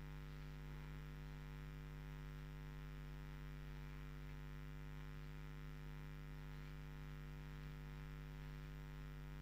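Steady, faint electrical mains hum with several even overtones, unchanging throughout.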